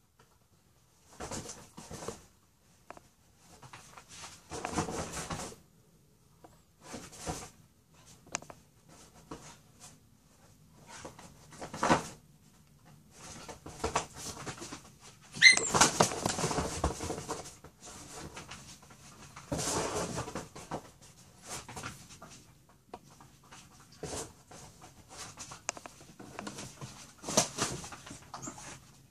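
A dog and a rooster fighting: irregular bursts of scuffling a second or two apart, with one brief high-pitched cry about halfway through, the loudest moment.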